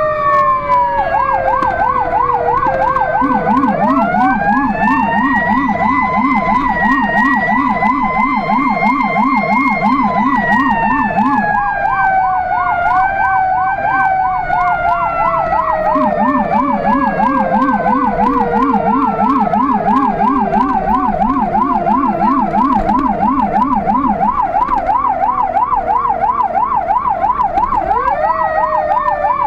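Emergency sirens of a Renault GBA fire engine on an alarm run: a fast yelp warbling steadily, with a slower wail rising and falling over it. A deep, low-pitched warble from the Rumbler low-frequency siren joins twice for about eight seconds each, about three and sixteen seconds in.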